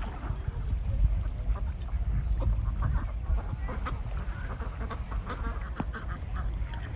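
Ducks quacking, a scatter of short calls running through.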